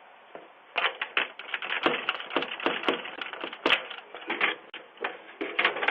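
A rapid, irregular clatter of sharp clicks and knocks, several a second, starting just under a second in and easing off near the end, heard through a low-quality microphone with a muffled, thin top end.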